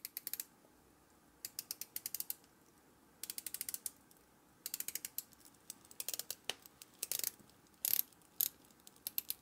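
Rotating bezel of a Leijona Heritage diver's watch being turned by hand: several short runs of rapid ratchet clicks with pauses between, then a few single clicks near the end. The clicking sounds smooth as silk, with the bezel aligning well despite a little back play.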